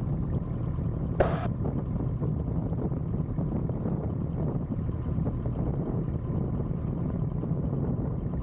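Piper J3 Cub's engine running steadily at low taxi power, a deep even drone, with a brief crackle about a second in.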